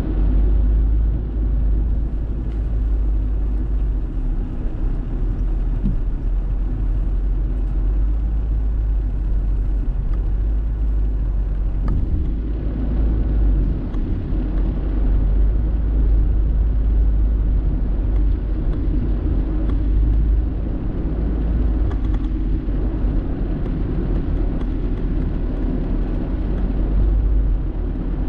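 Car driving through city streets, heard from inside the cabin: a steady low rumble of road and engine noise.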